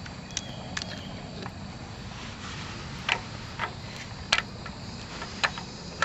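Scattered metallic clinks of hand tools and sockets being handled, about half a dozen sharp clicks over a steady low hum.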